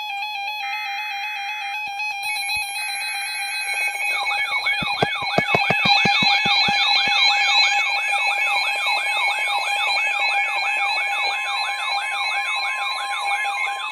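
Emergency alert signalling for a severe thunderstorm warning, sounding over steady electronic beep tones: two short bursts of screechy digital data (the SAME header), then from about four seconds in the long weather-radio warning tone, joined by a receiver's siren-style alarm that wails upward about twice a second.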